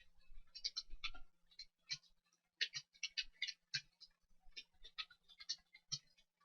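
Computer keyboard being typed on fast, an irregular run of key clicks several a second with a brief pause about two seconds in.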